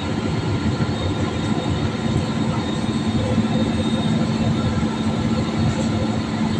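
Jet airliner cabin noise in flight: the steady roar of the engines and airflow, with a steady low hum under it.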